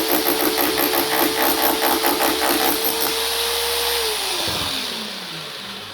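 SDS hammer drill running in hammer mode against concrete and stone, with fast rhythmic hammering over the motor's whine. The hammering stops about three seconds in, and about a second later the motor is released and winds down with a falling whine.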